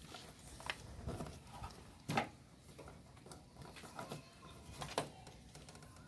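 Scattered clicks and knocks of hands working the hoses and fittings of a motorcycle carburetor as it is taken off, with the loudest knock about two seconds in.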